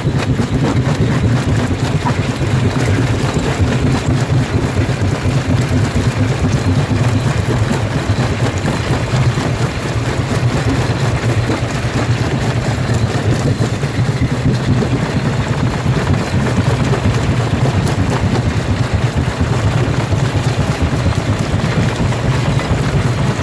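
Jaw rock crusher running steadily, with a loud low drone under a dense, continuous clatter of stone being crushed.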